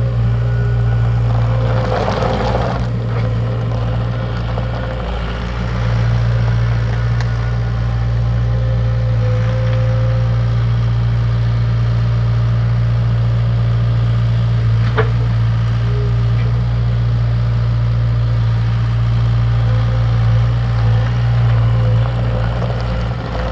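Diesel engine of a 2011 Mustang 2086 skid steer running at a steady speed, a constant low hum, with a short burst of noise about two seconds in and a single sharp click about halfway through.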